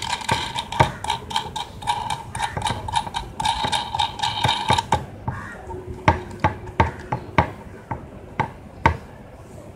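Small metal hardware clicking and clinking as a nut is spun by hand onto a threaded steel bolt, with a light metallic ringing. The clicking is dense and rapid for about the first half, then thins to scattered single clicks about twice a second.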